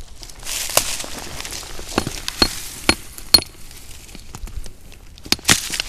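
Loose flat rock pieces clinking and clattering against one another as they are handled and shifted, about seven sharp clinks spread over a few seconds with rustling in between.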